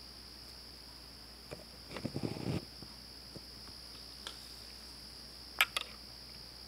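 Steady high-pitched insect chorus in the night air. A short burst of scratchy scrabbling comes about two seconds in, and two sharp clicks near the end are the loudest sounds.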